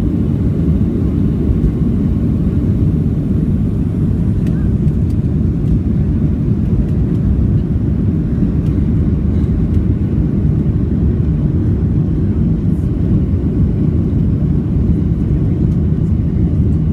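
Steady low rumble of a Boeing 737-700's CFM56 jet engines and airflow, heard from inside the passenger cabin.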